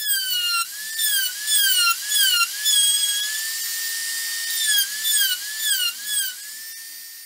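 Handheld mini rotary tool with a diamond burr whining at high pitch as it carves dots into red carob wood. The pitch dips briefly each time the burr bites, about ten times, with a steady unloaded stretch in the middle and a quieter steady whine near the end.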